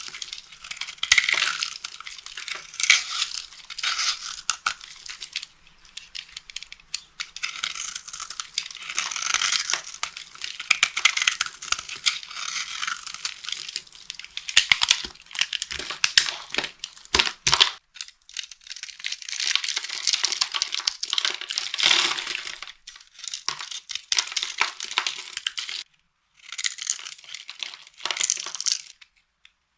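Dry soap being crushed, crunching and crackling in uneven runs broken by short pauses, with a few sharp snaps about two-thirds of the way through.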